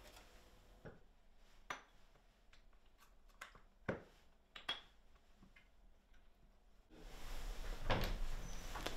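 Quiet kitchen handling: a freezer drawer pushed shut and ice cubes dropped into a ceramic bowl, heard as a few separate knocks and clinks. About two seconds from the end a louder steady hiss comes in, with a couple of thumps.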